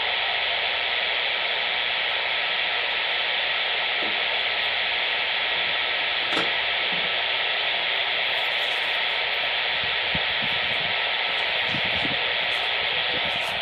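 CB radio receiver hissing with the steady static of an empty channel, squelch open, the hiss thin and band-limited like a radio speaker. A faint click about six seconds in.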